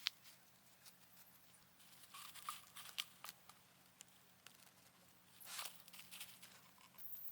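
Faint crinkling and rustling of plastic film being handled, in scattered bursts, after a sharp click at the start.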